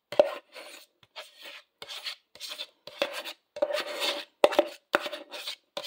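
A kitchen utensil scraping and rubbing against a plastic container in repeated short rasping strokes, about one or two a second.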